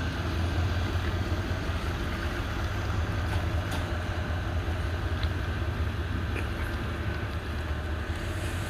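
Engine of a heavy-duty GMC Sierra dually pickup running steadily at low speed as it pulls away towing a food trailer: a low, even rumble.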